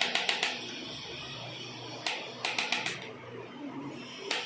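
Quick runs of sharp clicks, about eight a second. One run at the start, another from about two to three seconds in, and a single click near the end.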